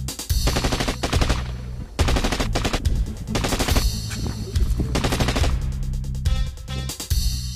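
Several bursts of rapid automatic gunfire with short gaps between them, as a film sound effect over an action music score with a steady low bass.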